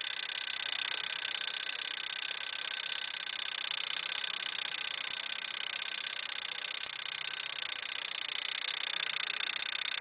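Simplex 4263 coded fire alarm pull station running its code-wheel mechanism: a steady mechanical whir as the motor-driven code wheel turns through another round of its code.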